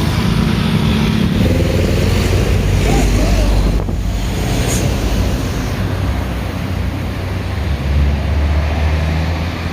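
Road vehicle engine running with a deep, steady rumble, and wind noise on the microphone. The rumble swells briefly near the end. No horn tune stands out.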